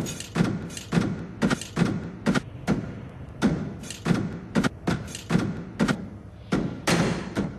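Heavy footsteps of a walking robot character in a cartoon sound track, about two thudding steps a second, with two brief pauses in the stride.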